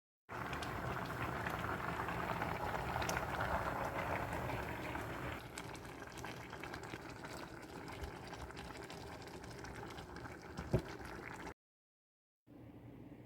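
Liquid boiling in a cooking pot, a steady bubbling that eases a little midway, with a sharp click near the end before the sound cuts out.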